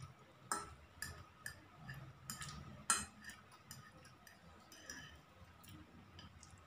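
Metal fork clinking and scraping against a plate as it works through and lifts noodles: a string of irregular sharp clinks, the loudest about three seconds in.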